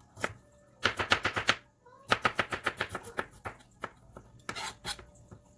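A kitchen knife dicing carrots on a cutting board: quick runs of chopping strikes, about ten a second, broken by short pauses and a few single strikes near the end.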